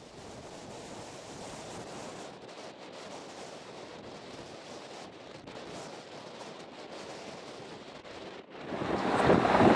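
Steady, even rushing noise of a distant taxiing ATR 72-600 turboprop airliner, with no clear engine tone. Near the end a much louder aircraft noise swells in sharply.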